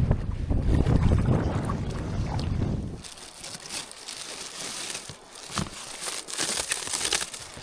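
Strong wind buffeting the microphone with a deep rumble, cutting off abruptly about three seconds in. After that, quieter water splashing and trickling with small irregular splashes.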